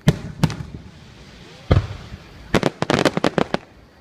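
Fireworks going off: two sharp bangs at the start, a deeper boom just under two seconds in, then a rapid string of cracks over the last second and a half.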